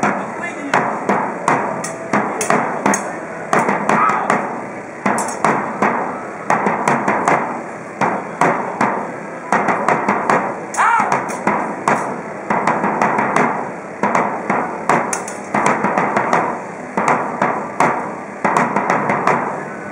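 Sharp percussive strikes in quick clusters, roughly one cluster a second.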